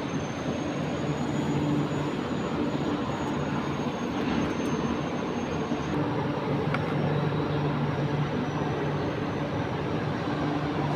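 Steady industrial plant noise: a continuous roar with a low electrical hum and a faint high-pitched whine.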